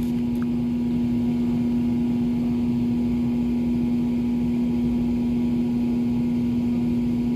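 Steady mechanical hum with one strong, low droning tone over a faint rumble.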